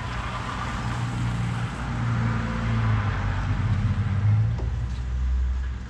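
A vehicle engine running steadily, a low hum that shifts lower about four and a half seconds in.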